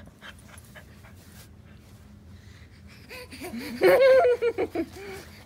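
Baby squealing and laughing in a string of short, high-pitched cries, starting about three seconds in and loudest around four seconds in.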